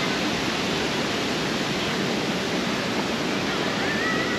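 Steady rushing of falling water, as from a large plaza fountain, unbroken throughout.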